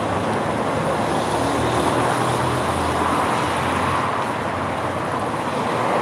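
Steady road-traffic noise, a continuous even rumble and hiss of passing vehicles.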